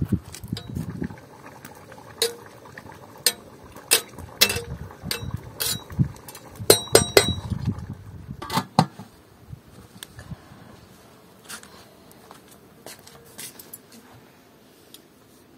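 Metal cooking pot and lid knocking and clinking, a string of sharp clanks with a short metallic ring around the middle, thinning out to a few faint taps near the end. Wind rumbles on the microphone at the start.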